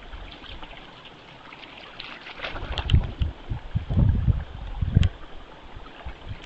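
White-tailed deer, a doe and fawn, wading through shallow pond water, with irregular splashing and sloshing that is loudest from about two to five seconds in.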